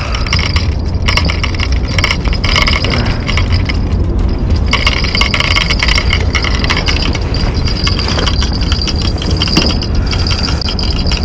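Baitcasting fishing reel being cranked, a rapid mechanical clicking of its gears as a hooked fish is wound in, over a steady low rumble.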